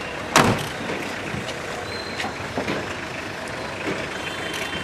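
A sharp knock about half a second in, then steady background noise with a few faint clicks.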